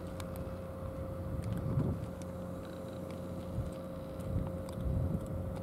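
A steady low engine hum with a low rumble that swells and fades now and then.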